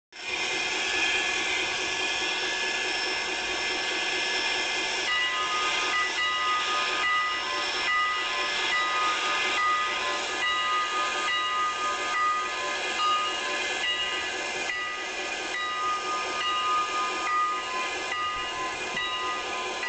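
Locomotive hissing steam steadily. From about five seconds in, a bell-like ringing repeats in a steady rhythm, about three strikes every two seconds, the way a locomotive bell rings before moving off.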